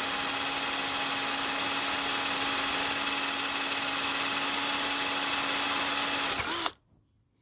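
Cordless drill running at a steady speed, its bit boring into a block of wood, with a constant motor whine. The motor stops abruptly near the end.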